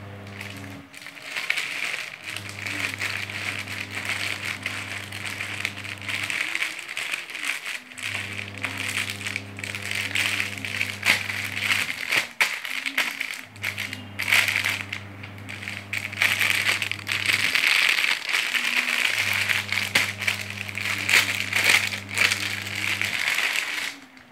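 Parcel packaging crinkling and rattling as it is handled and opened, with many small clicks and crackles. Under it runs background music whose low notes hold for a few seconds at a time with short breaks.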